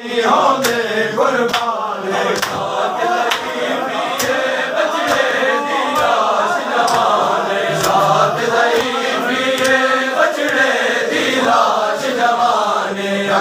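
Crowd of men chanting a mourning chant, with sharp slaps of hands striking bare chests about once a second: matam, Shia chest-beating in mourning.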